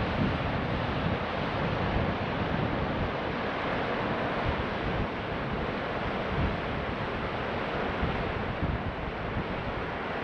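Steady rushing of a fast-flowing river, with wind buffeting the microphone in irregular gusts.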